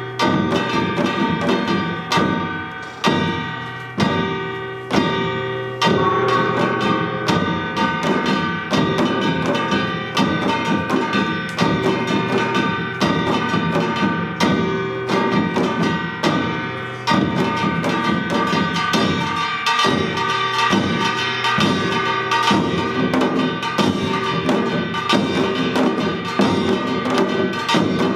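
Samul nori ensemble of Korean janggu hourglass drums and buk barrel drums playing a fast, dense rhythm, with steady metallic ringing over the drumming, typical of kkwaenggwari and jing gongs.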